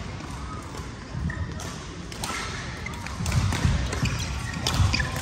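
Badminton doubles rally on an indoor court: sharp racket-on-shuttlecock hits at irregular intervals, and players' feet thudding and stamping on the court, heavier in the second half.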